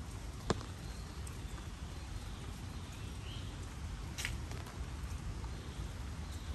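Steady patter of light rain and dripping in a garden, with footsteps on a wet paved path. Two sharp taps stand out, a loud one about half a second in and a lighter one about four seconds in.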